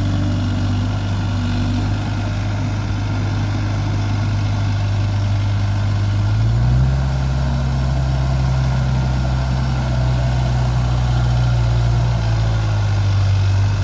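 Heavy diesel engine running steadily with a low hum; its pitch changes about halfway through and shifts back near the end.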